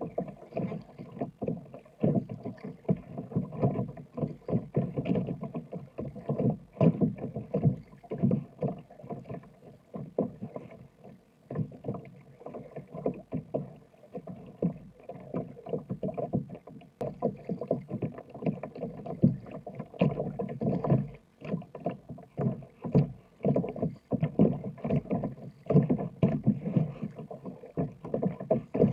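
Kayak paddling: a double-bladed paddle dipping and pulling through choppy water, with irregular splashes and waves slapping against the sit-on-top kayak's hull.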